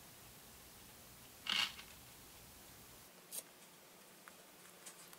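Faint small clicks and a short rattle of pearl beads being handled and threaded onto a string by hand. The rattle about one and a half seconds in is the loudest, followed by a sharp click and a few light ticks.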